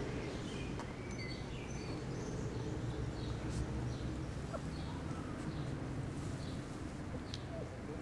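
Steady low outdoor background rumble, with a few short, faint high chirps about half a second to a second and a half in and an occasional faint click.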